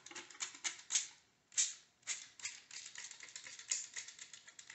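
Plastic trigger spray bottle squeezed over and over, each pull a sharp click with a short spritz of bleach, a few strokes a second.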